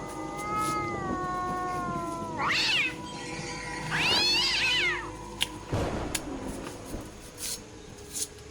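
Meow-like animal calls: a long cry that slowly falls in pitch, then two shorter cries that rise and fall.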